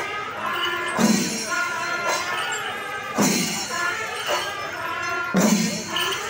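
Festival percussion music: a loud drum stroke with a cymbal crash about every two seconds, over held wind-instrument notes.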